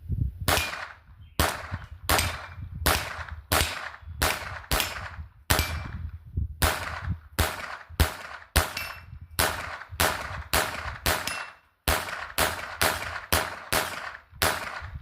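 .22 LR MP5-style rifle fired semi-automatically in a steady string of about twenty single shots, roughly one and a half a second. Some shots are followed by a short ring from bullets hitting steel silhouette targets.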